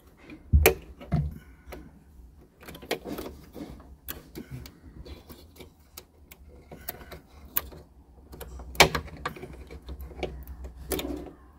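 Green plastic wiring connectors for a Jeep Cherokee XJ instrument cluster being handled and wedged into place: irregular clicks, knocks and rustling of plastic and tape. The sharpest knocks come about half a second in and just before nine seconds in.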